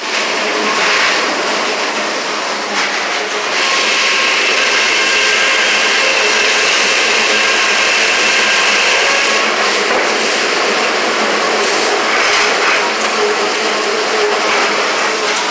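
Sawmill headrig and log carriage machinery running steadily, heard from inside the sawyer's booth. A saw cuts through a log with a steady high whine from about four to nine seconds in.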